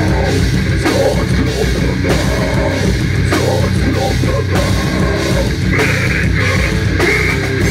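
Heavy metal band playing live: distorted guitars and bass over a pounding drum kit, recorded through a phone microphone. A shouted vocal comes in about six seconds in.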